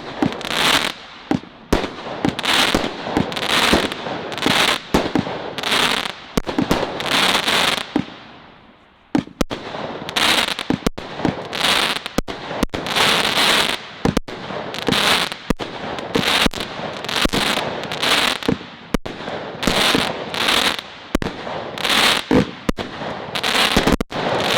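Celtic Fireworks 'Crazy Crackles' firework firing shot after shot, each bursting into a dense crackle, about one to two a second. There is a brief lull about eight seconds in, then it resumes.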